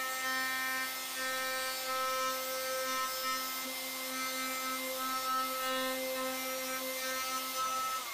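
Electric plunge router running at a steady whine while cutting a circular groove in plywood. Its pitch starts to fall at the very end as the motor winds down.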